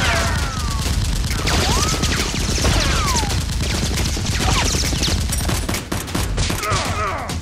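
Sustained rapid gunfire, several guns firing in overlapping automatic bursts, with many short falling whines like ricochets over the shots.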